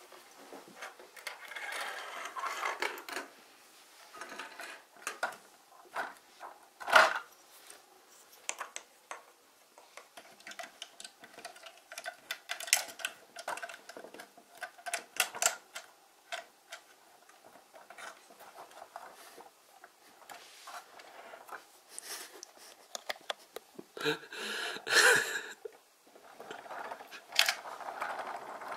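Plastic building-block toy pieces clicking and knocking against each other and on a tabletop as a toy truck and minifigure are handled, with one louder knock about seven seconds in and a short rattle near the end.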